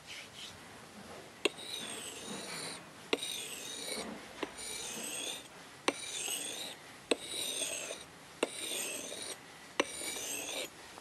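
Steel tomahawk blade being honed by hand on a whetstone: about eight scraping strokes, roughly one every 1.3 seconds, each opening with a sharp click as the blade meets the stone.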